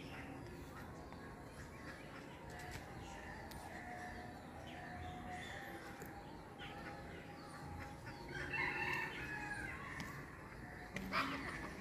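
An animal call about a second long, a little after the middle, over a faint steady outdoor background, with a short sharp sound near the end.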